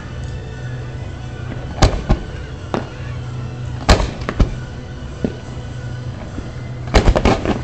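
Aerial firework shells bursting in sharp bangs, spaced about a second apart, then a quick volley of about half a dozen near the end.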